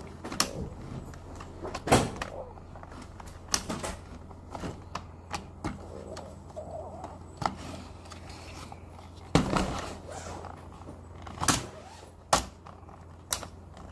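Hard plastic toy-track pieces of a playset being handled and fitted together: irregular clicks and knocks, with a few sharper knocks about two seconds in and several more in the second half.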